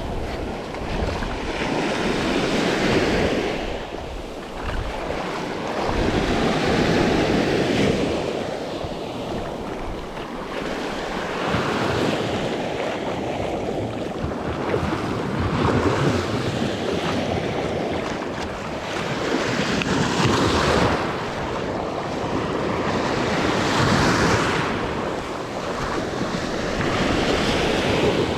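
Surf breaking on the beach, the wash swelling and fading about every four seconds, with wind buffeting the microphone.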